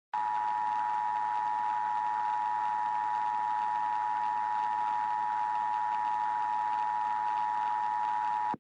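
Emergency Alert System attention signal: a steady two-tone alert (853 Hz and 960 Hz together) held for about eight seconds over a light hiss, then cut off sharply. It is the tone that warns an emergency broadcast message is about to follow.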